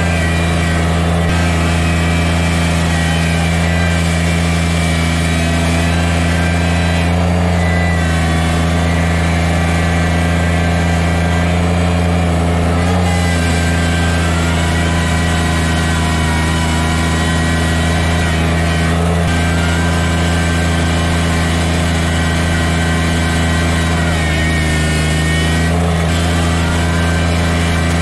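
Kubota BX sub-compact tractor's three-cylinder diesel engine running steadily under load as the tractor pushes deep snow, with a thin higher whine above the engine note that shifts slightly in pitch now and then.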